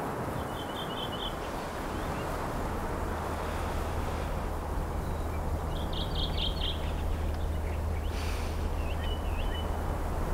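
A small bird chirping in three short trills over a steady rushing outdoor background noise. A low steady drone comes in about two and a half seconds in.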